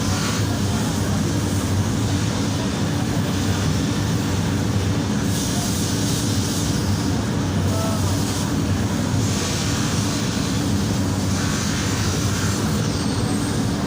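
A steady low mechanical hum, with repeated stretches of rasping hiss lasting a second or two each.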